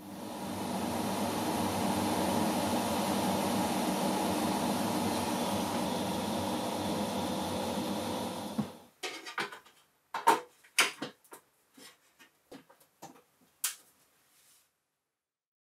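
Hot air rework station blowing steadily for about nine seconds while a tiny SMD capacitor is soldered onto the graphics card. Then a run of sharp clicks and knocks as a metal PC case is handled and its cables are plugged in.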